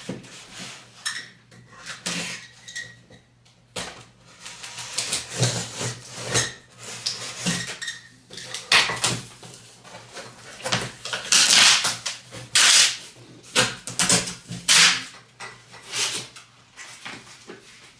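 Cardboard box and its packing being handled as a boxed PC case is opened: irregular rustling, scraping and bumps, busier in the second half, with longer rustling scrapes about two-thirds through.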